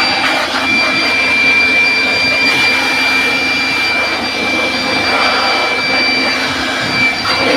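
Battery-powered electric air blower, its clips on the harvester's battery, running at full speed: a steady high whine over a loud rush of air.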